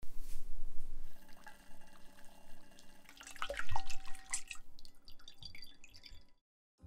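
Tentsuyu dashi in a pot, then the sauce poured through a strainer into a bowl, splashing and dripping, loudest about three to four seconds in, with fainter drips after.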